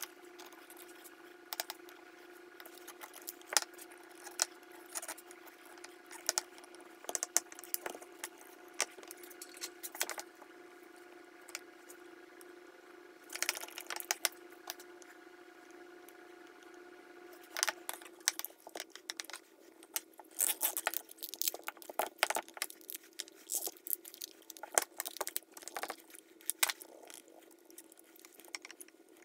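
Hand-forming of a leather holster around a pistol: scattered clicks, taps and rubbing of a pear shader and a wood block worked against the leather, with tools and the pistol knocking on a granite slab. The taps grow busier about two-thirds of the way in, over a steady low hum.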